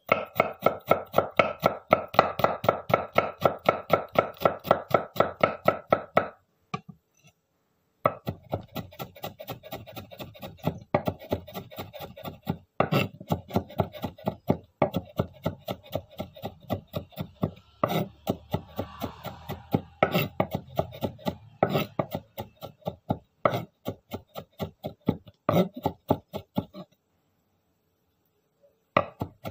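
Knife finely chopping garlic on a cutting board: rapid, even chops about five a second, stopping twice for a second or two.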